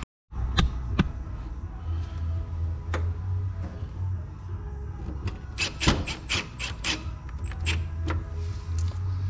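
Clicks and knocks of parts being handled while a new MIG gun cable is fitted into a welder's wire feeder, over a steady low hum. About halfway through comes a quick run of about six sharp clicks.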